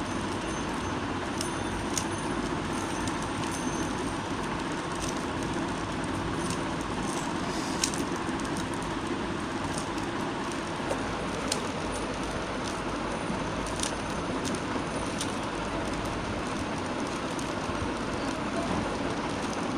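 A plastic 3x3 puzzle cube being turned by hand, its layers giving short, scattered clicks over a steady hiss and hum.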